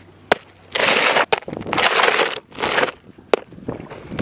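A small blade slicing through the tape and cardboard of a box. There are three rasping cuts, the longest near the middle, and a few sharp clicks in between.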